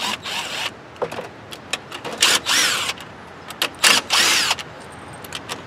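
Power drill driving a nut driver to back out the screws that hold the plastic fan screen over a lawn tractor engine's flywheel. It runs in three short bursts, each rising then falling in pitch, with light clicks between them.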